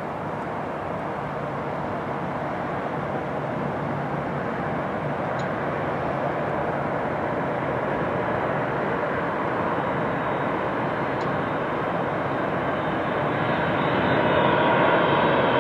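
Boeing 747 Dreamlifter's four jet engines on final approach: a steady rumble that grows gradually louder as the aircraft nears, with a high engine whine coming in near the end.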